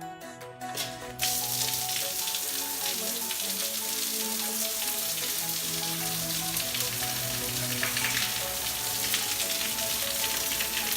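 Shower head spraying water, switched on suddenly about a second in and running as a steady hiss of falling water, over background music.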